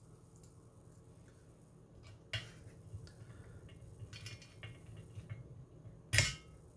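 Hard plastic model-kit parts and a small screwdriver being handled: light clicks and ticks, with two louder sharp knocks, one about two and a half seconds in and one about six seconds in.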